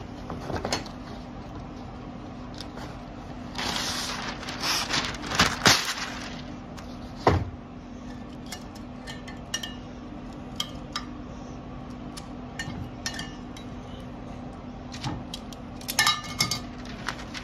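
Butcher paper rustling as a sheet is pulled off its roll about four seconds in, then metal tongs clicking and scraping against a ceramic bowl while a chuck roast is lifted out, with a quick run of clinks near the end.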